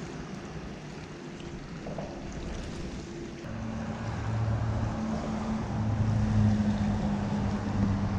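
Wind and water noise, joined about three and a half seconds in by a low, steady mechanical hum that grows louder.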